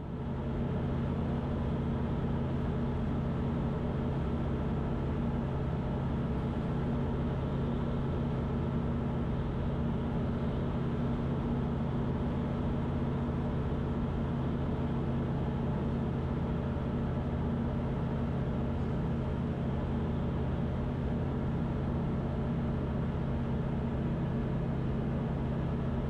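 Van's RV-12's Rotax 912 four-cylinder flat-four engine and propeller running steadily in level flight, heard inside the cockpit as an even hum of unchanging pitch.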